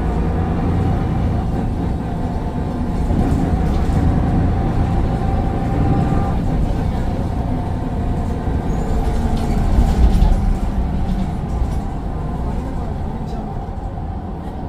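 Mercedes-Benz Citaro bus heard on board, its Daimler OM906 6.4-litre six-cylinder diesel running under way with a steady turbo whine over the engine's rumble.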